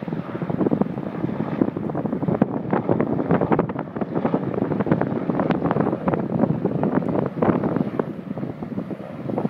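Wind buffeting the microphone in uneven gusts, with a helicopter flying at a distance.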